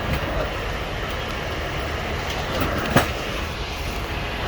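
Steady rumble of a moving vehicle heard from inside, with one sharp click about three seconds in.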